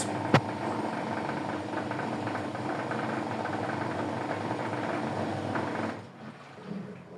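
LG automatic washing machine running, a steady mechanical motor-and-drum noise, with one sharp click shortly after the start. The noise stops about six seconds in.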